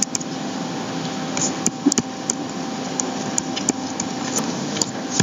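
Steady background hiss with a faint electrical hum, broken by a few short, faint clicks scattered through it.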